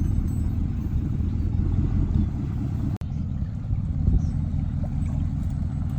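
A motor vehicle's engine running with a steady low rumble, towing a boat trailer, cut off by a very brief break about halfway through.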